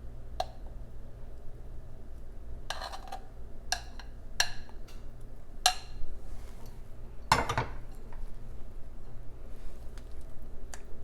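A utensil clinking and scraping against a dish in several separate knocks as flaxseed and niger seed paste is scooped and spread on flatbread, the loudest a short cluster about seven seconds in. A low steady hum lies underneath.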